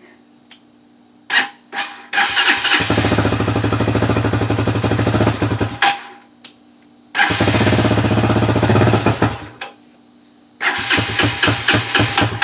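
RPS Hawk 250 single-cylinder engine being turned over by its electric starter, choke on, in three cranking attempts with short pauses and a few clicks between them; the third comes in sharper, uneven pulses. The engine is not catching yet.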